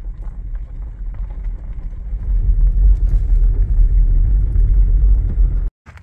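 Car driving along a dirt road: a low, steady rumble of tyres and engine that grows louder about two seconds in, then cuts off suddenly near the end.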